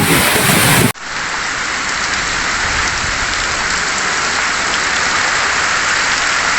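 Heavy rain pouring down in a steady hiss. For about the first second, wind buffets the microphone, then it cuts off suddenly to the rain alone.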